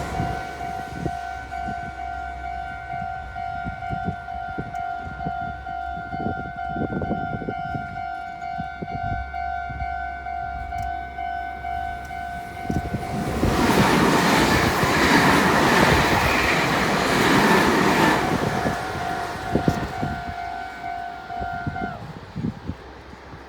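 Japanese level-crossing warning bell ringing its repeating electronic "kan-kan" tone. A Meitetsu Nagoya Main Line train passes through the crossing for about five seconds in the middle, loudest of all. The bell stops about a second and a half before the end.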